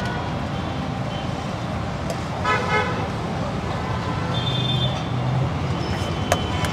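Street traffic rumbling steadily, with a vehicle horn giving two short toots about two and a half seconds in. A single sharp click near the end.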